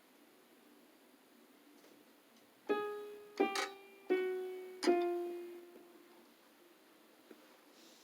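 Electronic keyboard playing five separate piano-like notes, a little under three seconds in, each struck and left to fade out.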